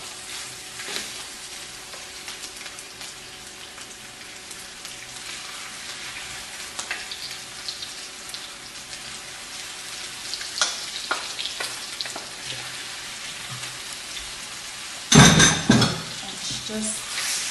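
Chicken pieces sizzling as they go into hot olive oil in a stainless steel frying pan, with light scrapes and taps of a wooden spatula. A loud clatter about fifteen seconds in.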